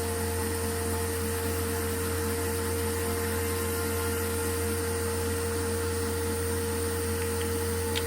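Steady machine hum, a low drone with a constant mid-pitched tone and a faint high whine, like a small motor or fan running continuously. A faint click comes near the end.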